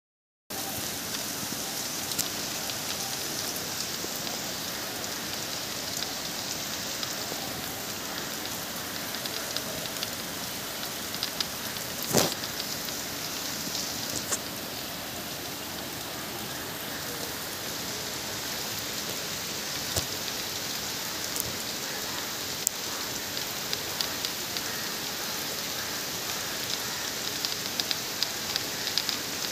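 Rain falling steadily, an even hiss on roofs, trees and the lane below, with scattered sharp ticks of nearby drops and one louder knock about twelve seconds in.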